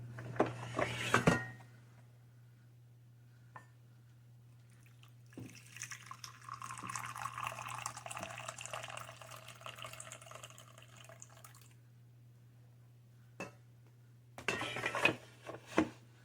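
Clattering of dishware and coffee-maker parts being handled, then a stream of water running for about six seconds, then more clinks near the end. A low electrical hum runs underneath.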